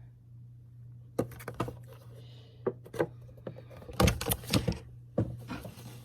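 A scattered series of sharp clicks and knocks from small objects and packaging being handled, loudest about four seconds in, over a low steady hum.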